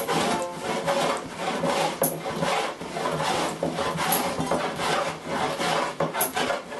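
A hand tool working wood in quick repeated strokes, each a scraping swish of metal cutting across the grain.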